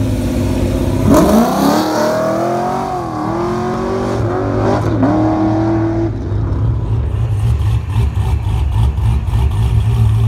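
A Chevrolet Camaro accelerating away, its engine revving up with a rising pitch about a second in and climbing again after a gear change near five seconds. After about six seconds a Chevrolet Corvette's V8 rumbles past at low speed with a deep, steady note.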